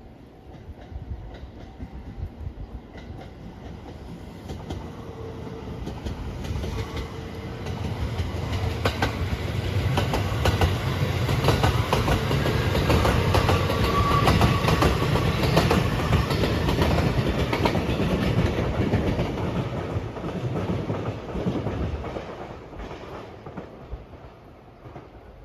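An electric express train passing close by: its rumble and the rapid clickety-clack of its wheels over the rail joints build as it approaches, are loudest around the middle, then fade as it moves away.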